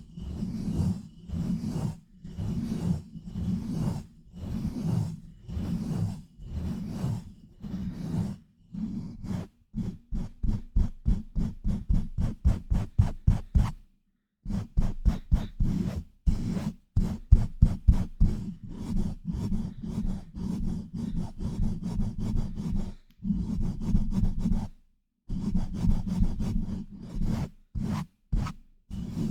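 Hands rubbing and pumping directly on a microphone in fast rhythmic strokes, each a muffled, rasping scrub. About two strokes a second at first, speeding up to about four or five a second about ten seconds in, with brief pauses near the middle and again later.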